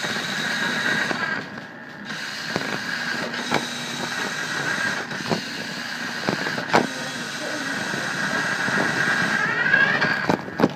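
Toy RC truck's small electric motor and gears whining as it drives, heard from a phone riding on the truck, with clicks and knocks as the truck jolts along. The whine drops out briefly about a second and a half in, then comes back.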